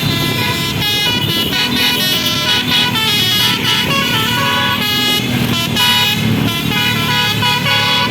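Bus's Basuri telolet air horn playing a melody of quick stepped notes, one tone after another with no pause.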